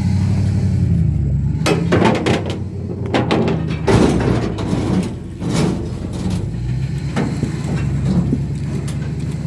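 An engine running steadily, with a run of metal clanks and knocks between about two and six seconds in, as a backhoe is worked into line on a trailer.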